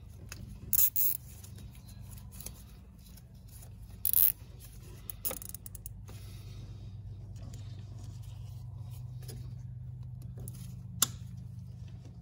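A nylon zip tie being pulled tight through its head in a few short ratcheting zips, followed by a single sharp click near the end.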